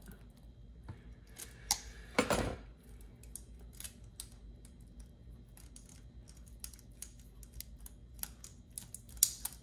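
Small clicks and taps of metal and plastic toothbrush parts being handled in the fingers. About two seconds in comes a louder clatter as steel groove-joint pliers are set down on a hard box.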